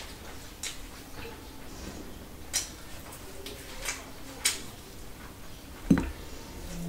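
Close-miked eating sounds of chicken and rice eaten by hand: a handful of sharp, wet mouth smacks and chewing clicks about a second apart, the loudest near the end.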